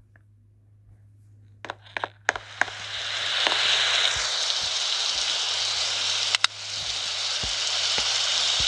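A few sharp clicks, then the steady hiss of pouring rain swells in about two and a half seconds in and holds, with one more click and a brief dip near the end.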